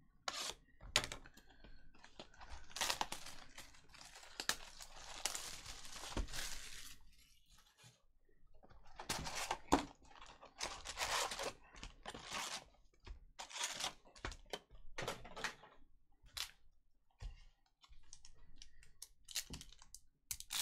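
Trading card box and packs being opened by hand: wrapping tearing and crinkling in irregular bursts, with sharp clicks and rustles of handling in between.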